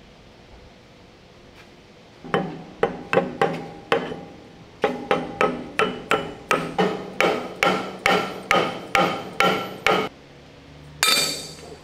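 Hammer blows on a steel drift, driving a bearing and its machined housing down onto a steel final-drive shaft. There are about twenty ringing metallic strikes, roughly three a second, with a short pause after the first few. A brief clatter follows near the end.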